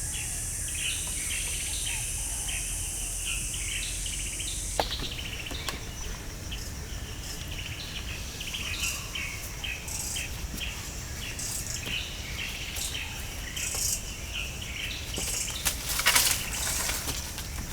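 Outdoor ambience of birds chirping over and over, with a steady high insect drone that cuts off abruptly about five seconds in. A sharp click comes just as the drone stops, and a louder brief noise sounds near the end.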